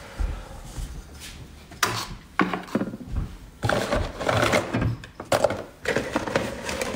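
Clatter of making coffee: two sharp knocks about two seconds in, then a couple of seconds of rapid rattling and clicking.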